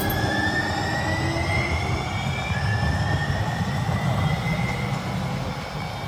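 Two-car Siemens light-rail train pulling away and accelerating: its electric drive whines in several tones that rise in pitch over the first few seconds, over a low rumble of the wheels on the rails. The sound eases off near the end as the train moves away.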